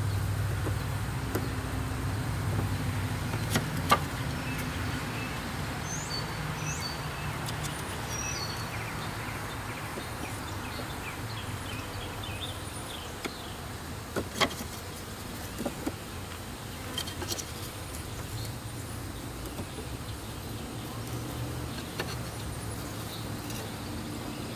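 Honeybees buzzing around a top-bar hive as a package is installed, a steady low drone. A few sharp knocks and some brief high chirps sound over it.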